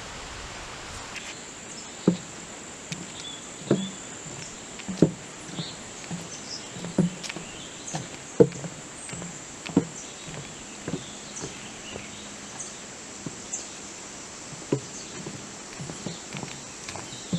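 Footsteps walking along a dirt forest trail, a step about every second and a half, over a steady high insect drone.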